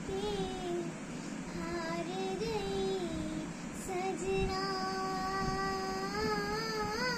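A young girl singing solo with no accompaniment, in short phrases and then a long held note that rises at its end.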